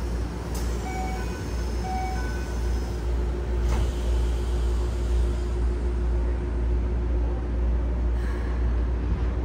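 Inside a Keikyu 1000 series train car with a Toyo IGBT-VVVF drive, the train runs with a steady low rumble of wheels on rail and a constant hum. A few short beeps sound about a second in, and faint clicks come later.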